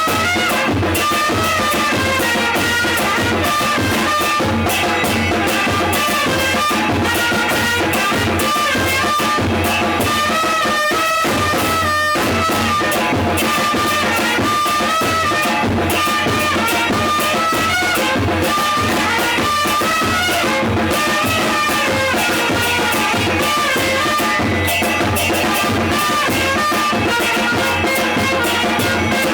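Two trumpets playing a melody together over a snare drum and a bombo murguero (murga bass drum), a loose live jam with a steady drum beat under held horn notes.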